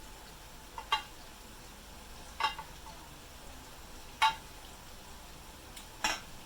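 Chicken thighs frying in shallow oil in a pan, with a faint, steady sizzle. Four sharp clicks stand out over it, about two seconds apart.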